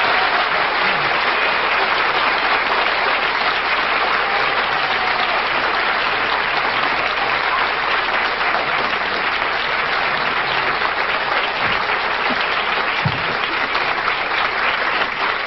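A studio audience applauding, steady and sustained.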